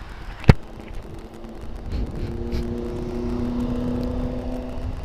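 A sharp click about half a second in, then a vehicle engine running at a steady speed under a low rumble, its hum growing louder from about two seconds in.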